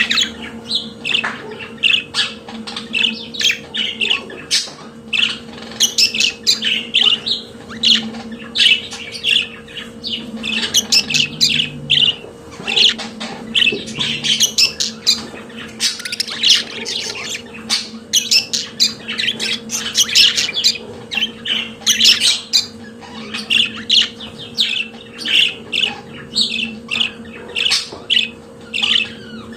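Budgerigars chattering and warbling: a continuous stream of rapid chirps, squawks and scratchy warble notes, with no pauses. A steady low hum runs underneath.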